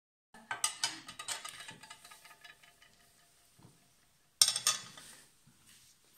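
Steel-bladed Sardinian folding knives clinking and clattering as they are handled on a table. A run of sharp metallic clinks with a brief ring fades over about two seconds, and a second loud clatter of clinks comes about four and a half seconds in.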